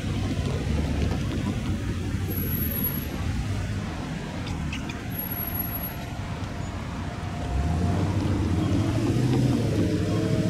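Freight train's boxcars rolling away over the rails with a steady low rumble and a few faint clicks. About two-thirds of the way through, a louder motor-vehicle engine hum with steady low tones comes in and grows.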